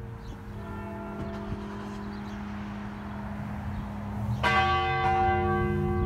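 Church bell rung by hand with a rope, its long hum ringing on between strokes. A fainter stroke comes about half a second in and a loud, clear stroke about four and a half seconds in.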